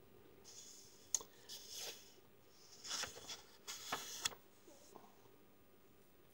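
Rustling handling noise from someone moving things close to the microphone, in uneven bursts with a sharp click about a second in and another near four seconds, then fading to quiet room tone.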